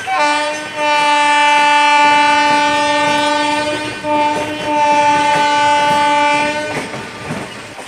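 Indian Railways WAP-1 electric locomotive's horn sounding a pattern of blasts: a short toot, a long blast of about three seconds, another short toot, then a second long blast that cuts off near the end. Under it is the clatter of train wheels over the rail joints.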